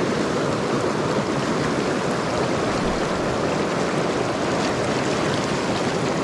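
River water rushing steadily, an even, unbroken noise.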